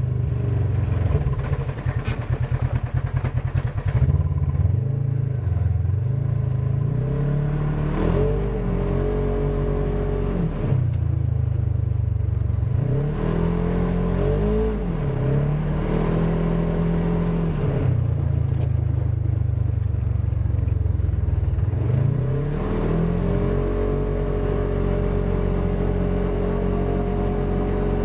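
Polaris RZR 1000 side-by-side's twin-cylinder engine revving as it is driven, its pitch rising and falling several times, with a choppy, pulsing stretch in the first few seconds.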